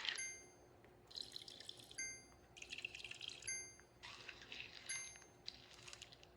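Liquid pouring and dripping sounds alternating with short bright chimes, four chimes about a second and a half apart.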